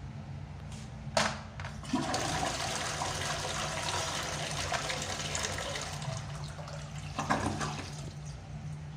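Zurn flushometer flushing: a sharp click of the handle about a second in, then a rush of water from about two seconds in that runs about five seconds before tapering off. A low steady hum runs underneath.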